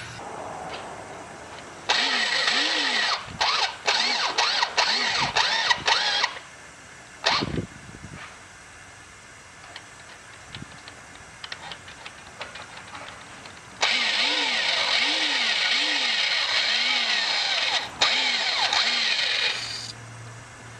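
Power drill boring out the stripped head-bolt threads in a Toyota 2.4L engine block, cutting metal for a Time-Sert insert. It runs in two spells, about four seconds and then about six seconds, with a short burst and a pause between, its pitch wavering as the bit bites.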